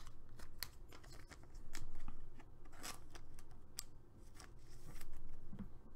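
A trading card being slid into a thin clear plastic sleeve by hand: soft plastic rustling with scattered small clicks, swelling a little about two seconds in and again near the end.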